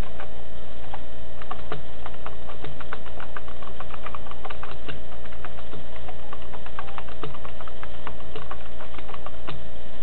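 Typing on a computer keyboard: quick, irregular runs of key clicks over a steady hum.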